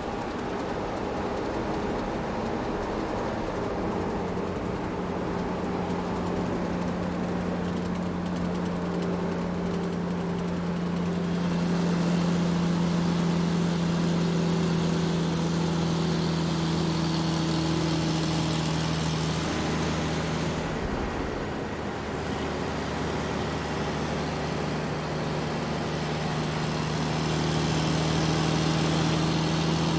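Large truck's engine running as it drives, a steady low drone with road noise. It grows louder about twelve seconds in, dips briefly about two-thirds of the way through, then picks up again near the end.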